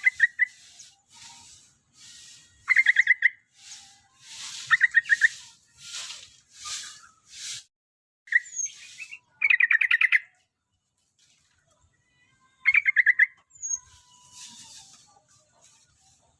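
Yellow-vented bulbul (trucukan) singing: about five short, loud, rapidly bubbling phrases a few seconds apart, with softer hissy chatter between them.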